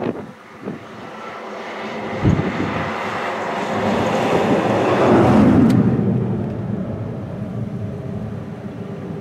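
A motor vehicle passing close by, its engine and road noise swelling to a peak about five seconds in and then fading away. A few knocks and a low thump come in the first few seconds.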